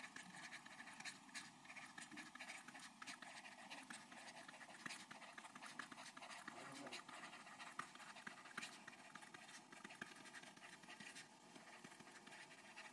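Near silence with faint, irregular ticks and scratches from a stylus writing on a tablet.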